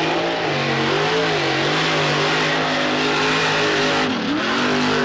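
Lifted mud truck's engine at high revs, held high while it drives through a pit of muddy water, with the hiss of mud and water spraying from its tyres. The revs drop briefly about four seconds in and climb again.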